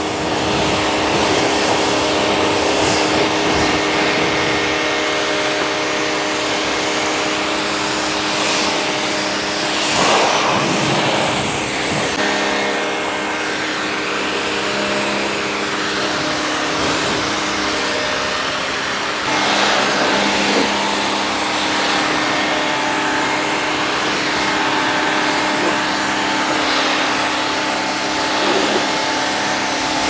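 Bosch AQT 125 electric pressure washer running steadily under load, its motor-driven pump whining while the high-pressure water jet hisses against the car body.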